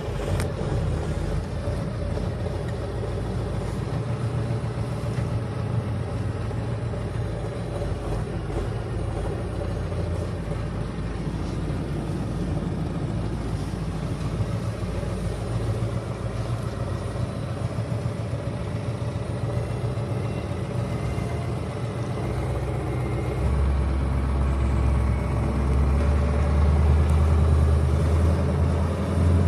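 KAMAZ truck engine running steadily with a low rumble that grows louder about 23 seconds in.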